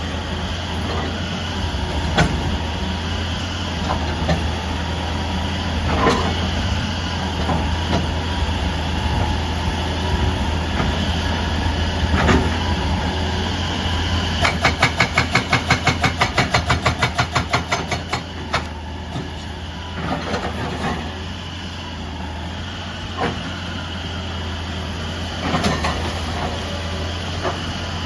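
Excavator engine running steadily, with a few scattered clanks. About halfway through, a hydraulic breaker hammer fires a burst of rapid blows, about six a second, for three to four seconds.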